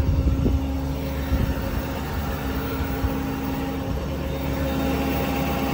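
Ford F550's 6.7 Power Stroke V8 turbodiesel idling steadily, a low rumble with a constant hum over it.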